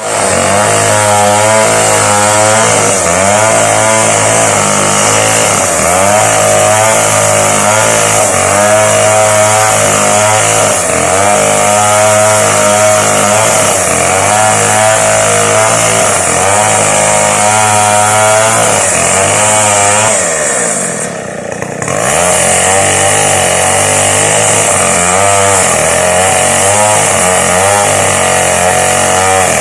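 Two-stroke chainsaw running at full throttle, cutting lengthwise through a coconut palm trunk to make lumber, its pitch wavering as it bogs under load. About two-thirds of the way through it drops off briefly, then revs back up into the cut.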